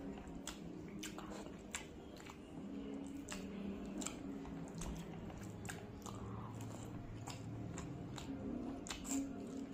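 A person chewing a mouthful of rice and fish eaten by hand, close to the microphone, with sharp wet mouth clicks every second or so.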